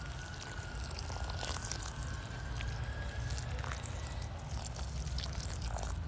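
Water being poured onto the soil of potted cauliflower plants, splashing and trickling, over a steady low rumble. A faint thin tone runs underneath and fades out a little past halfway.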